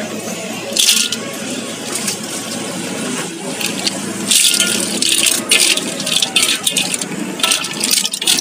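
Green mussel shells clattering into a steel wok and rattling against it and a metal spatula as they are tipped in and stirred through the sauce, in several bursts.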